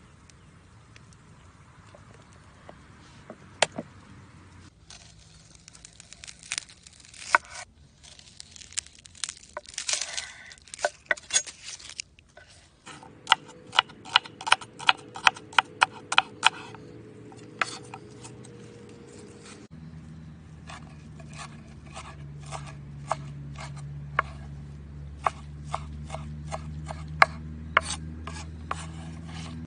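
Large knife chopping on a wooden cutting board, first slicing onion and then mincing fresh herbs: sharp knocks of the blade on the board, in quick runs of several a second.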